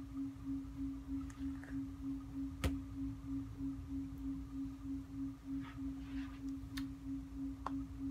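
A steady low hum that pulses about three times a second, over a faint rumble, with a few short clicks, the sharpest about a third of the way in.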